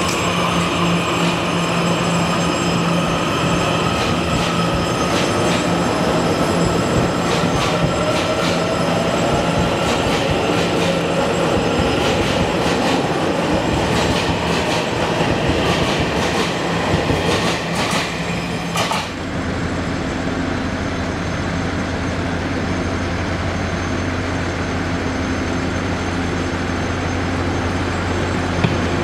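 TEMU2000 Puyuma tilting electric train rolling slowly past: a motor whine shifting in pitch, with many sharp clicks from the wheels on the track. A little past halfway it cuts abruptly to a steadier, lower electric hum from the train.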